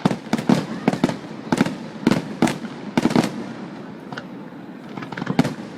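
Fireworks shells bursting in quick succession: a rapid run of sharp bangs over the first three seconds or so, a lull, then two more bangs close together near the end.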